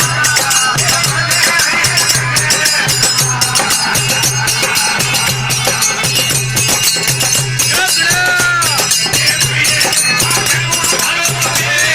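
Indian devotional folk music (desi bhajan) with a steady pulsing drum beat, continuous jingling percussion and a melodic line.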